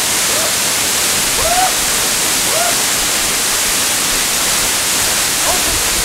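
Waterfall pouring in a loud, steady rush, with a few brief vocal sounds over it.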